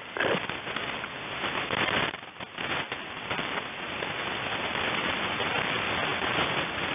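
Shortwave radio static: a steady hiss and crackle of band noise from the receiver once the voice transmission has ended. It dips briefly about two seconds in, then carries on evenly.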